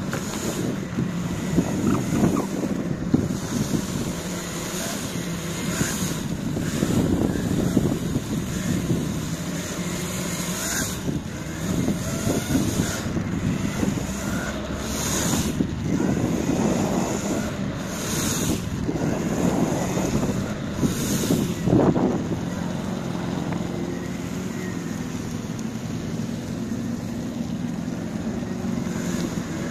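Electric skateboard rolling over rough asphalt: a steady rumble from the wheels, with wind buffeting the microphone in gusts.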